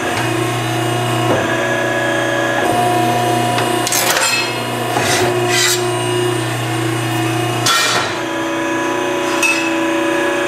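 Ironworker running with a steady hum, its note shifting a few times as the machine cycles, with several sharp metallic clanks from about four seconds in as the shear cuts off a metal bar.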